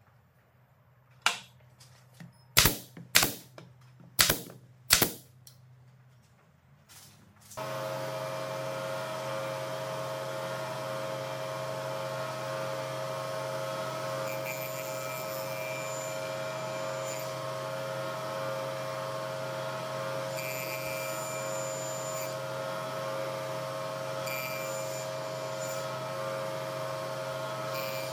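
A handful of sharp wooden knocks as boards are set down on the bench. Then, about seven seconds in, an electric hand planer's motor starts and runs steadily with a constant hum and whine.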